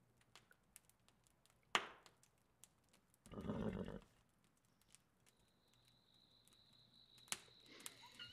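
A horse snorts once, a short noisy blow through the nostrils about three and a half seconds in, after a single sharp knock a little before that. A steady high tone comes in during the second half.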